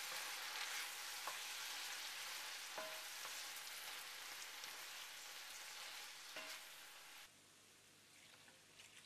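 Whole prawns sizzling in hot oil in a pan with scallions and garlic, being turned over, with a few light clicks of the utensils. The sizzle cuts off sharply about seven seconds in, leaving only a faint hiss.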